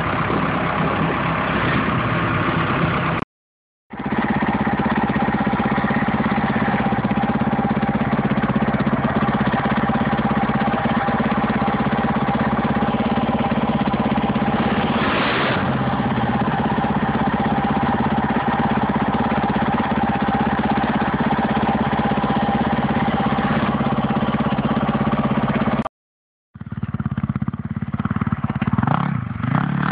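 Small off-road vehicle engine idling steadily, broken twice by a sudden drop to silence of about half a second.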